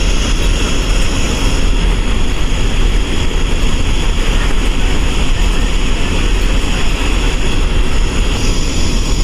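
Eicher bus diesel engine running steadily at cruising speed, heard from the driver's cabin as a constant low rumble under road and wind noise.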